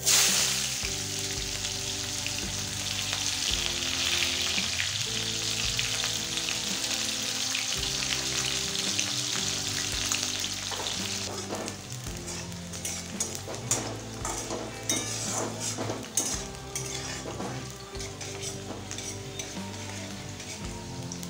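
Sliced onion hitting hot mustard oil with nigella seeds in a metal kadai: a loud sizzle that starts suddenly, then settles to a softer frying sizzle about halfway through. In the second half a metal spatula scrapes and stirs the onion against the pan.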